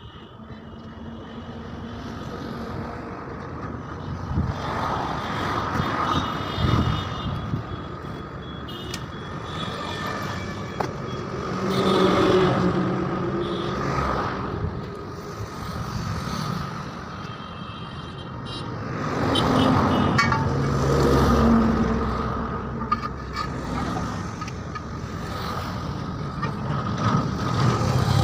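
Motor vehicle engine noise running steadily, swelling louder twice, with scattered clicks and knocks.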